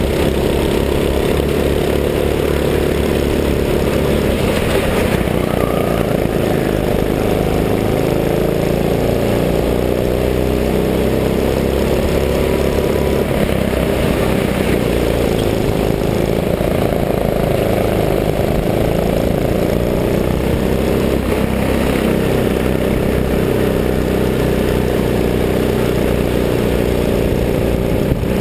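Go-kart engine running hard close to the camera, its pitch rising and falling again and again as the throttle opens on the straights and eases for the corners.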